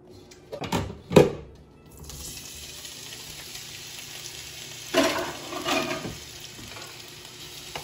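Diced raw potatoes going into a nonstick frying pan of hot oil with a few knocks, the loudest about a second in. The potatoes then sizzle steadily as they start to brown, with a couple of louder clatters around five and six seconds in.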